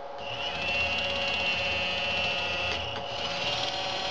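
Small electric motor of a Meccano robot arm running with a steady high whine as it drives the arm up and down. It stops briefly about three seconds in and starts again.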